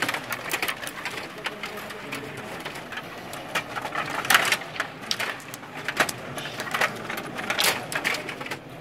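Stiga table hockey game in play: a busy run of clicks and clatter from the metal control rods being pushed, pulled and twisted and the plastic players hitting the puck, with a couple of sharper knocks, about four and a half and seven and a half seconds in.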